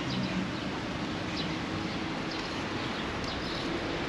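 Steady background street noise, with a few faint bird chirps.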